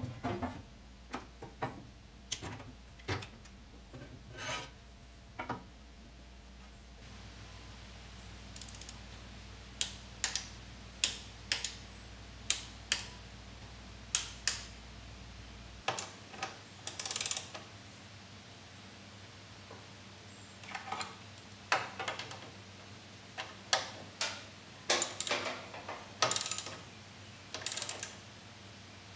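Hand socket ratchet clicking in short runs of strokes with pauses between them, with a few light knocks of tools on metal, as bolts on the generator's alternator housing and mounts are turned.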